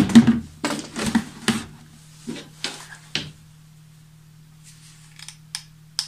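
Plastic handling clicks and knocks from a large plastic water bottle and its parts being worked by hand. There is a quick run of sharp clicks in the first three seconds, then a few lighter ticks near the end, over a faint steady hum.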